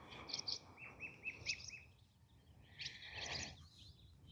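Wild birds singing: scattered high chirps, with a run of five quick, evenly spaced falling notes in the middle.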